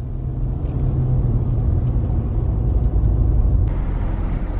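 Car driving, heard from inside the cabin: a steady low rumble of engine and road noise. About three and a half seconds in there is a brief tick, after which the rumble changes slightly.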